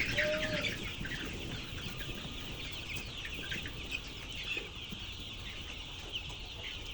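A flock of chickens calling and clucking, a steady mass of short, high chirps overlapping with no pause.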